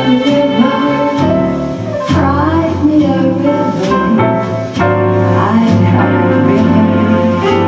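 A karaoke song playing loudly, with a voice singing the melody over the backing music.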